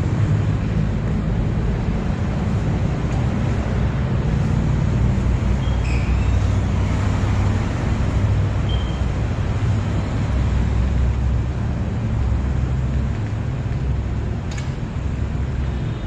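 Steady low rumble of motor-vehicle noise, with a few brief high squeaks around the middle and a sharp click near the end.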